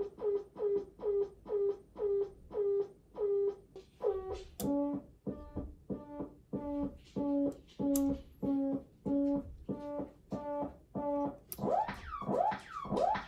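Noise Toaster DIY analog synthesizer playing a repeating pulsed tone, about three short notes a second. About four seconds in the pitch drops and the pulses slow. Near the end they turn into quick gliding sweeps as the controls are changed.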